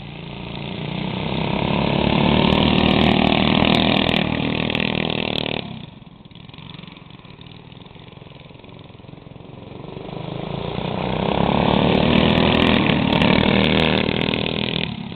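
Small go-kart engines running hard as the karts pass close by twice, each time growing louder over a few seconds and then dropping off sharply.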